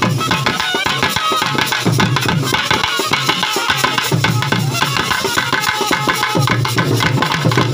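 Karakattam folk dance music: barrel drums played in a fast, dense rhythm, with a melody line held and bent over them and a deep pulse about every two seconds.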